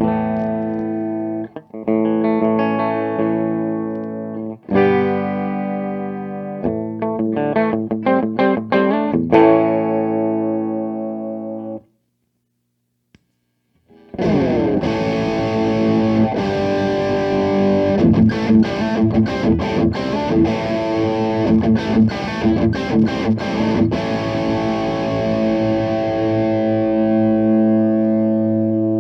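Electric guitar (Fender Stratocaster on its humbucker) through a Fire Custom Shop Ultimate Distortion pedal into a miked Peavey Bandit 112 amp, playing distorted chords that ring out for about twelve seconds. After a short pause comes a brighter, denser distorted riff with fast muted chugs in its middle.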